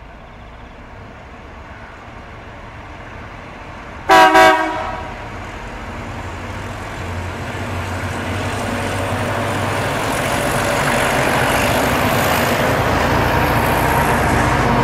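Southern Shorthaul Railroad's diesel locomotive SSR101 sounds its horn: a short double toot about four seconds in. After it, the engines of SSR101 and its two trailing diesel locomotives rumble and grow steadily louder as the wheat train approaches and passes.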